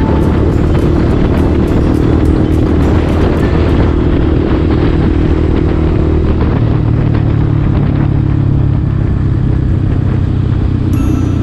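Motorcycle engine running steadily at cruising speed, about 60 km/h, with wind and road noise, under background music with a beat.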